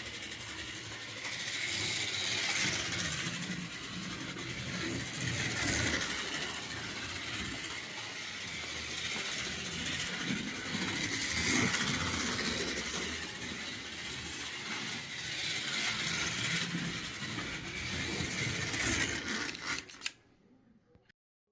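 1/24 scale slot car with a rebuilt Strombecker electric motor lapping a slot car track: a steady buzzing whir of the motor and tyres. It grows louder every few seconds as the car passes close by, then cuts off sharply near the end.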